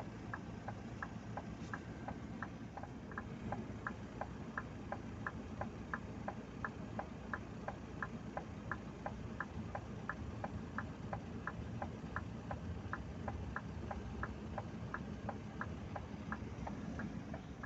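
Indicator flasher relay in a truck cab, clicking steadily about three times a second, over the low hum of the dump truck's idling diesel engine.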